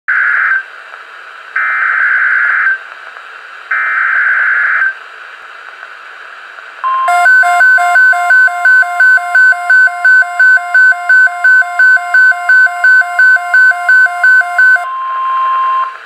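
NOAA Weather Radio receiver sounding an Emergency Alert System alert: three bursts of the screechy SAME digital header, about a second each, then the long steady warning alarm tone of a severe thunderstorm watch. A pulsing beep, about two and a half a second, sounds over the tone for most of its length and stops shortly before the tone ends.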